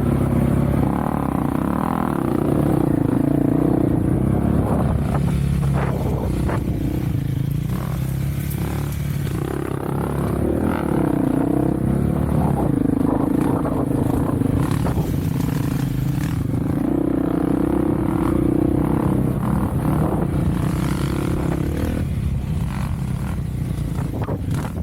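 Off-road vehicle engine running under changing throttle, its pitch rising and falling repeatedly, with occasional clatter and knocks.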